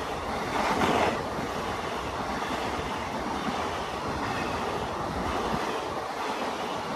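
Passenger coaches of an express train passing at speed: a steady rush of wheels on the rails, louder for a moment about a second in.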